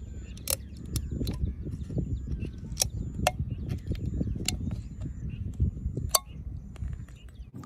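Aluminium drink can being worked open by hand, its thin top bent and torn away: a string of sharp, irregular metallic clicks and crinkles over a steady low rumble.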